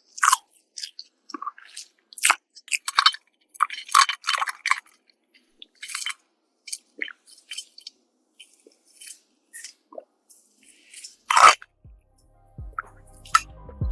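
Close-miked mouth sounds of eating: a string of short wet clicks, smacks and chewing, with one louder sound about eleven seconds in. Soft music comes in near the end.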